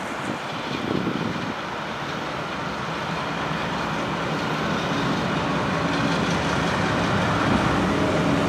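GE C36-7i diesel-electric locomotive approaching at the head of a freight train, its V16 diesel engine running and growing steadily louder as it nears.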